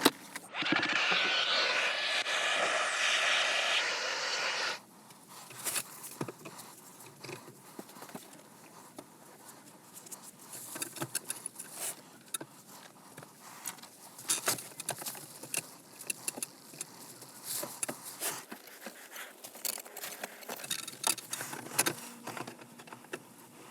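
A steady rushing hiss for about four seconds, then many light, scattered metallic clicks and clinks of hand tools and fittings as shower supply lines are reworked.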